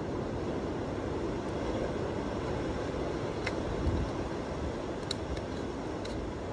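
Steady rushing roar of wind and surf breaking on the rocks below. A few light clicks come in the second half, with a dull knock about four seconds in.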